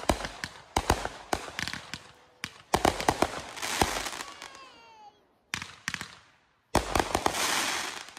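Consumer fireworks going off: a rapid run of sharp bangs and crackling, with a few falling whistling tones about four seconds in. The sound cuts out abruptly twice and comes back with a fresh burst of bangs and crackle.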